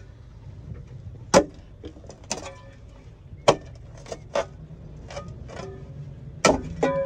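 Pick mattock chopping into root-packed debris in a manhole: sharp blows every second or so, a few of them ringing briefly where the blade hits hard material.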